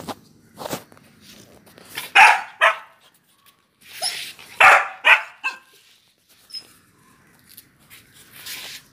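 Rottweiler puppy barking in short bursts: two loud barks about two seconds in and two more around five seconds in, with softer yips between.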